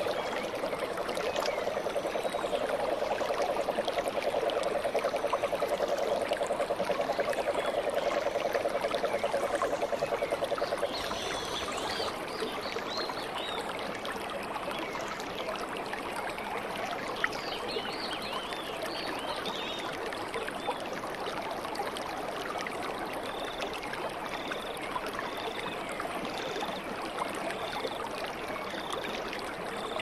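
Water running steadily over a small rocky cascade into a pool. A stronger, fast-pulsing low note sits on the water sound for about the first eleven seconds, then the water sound settles slightly quieter. High chirping calls come over it in the second half, ending with a short high note repeated about once a second.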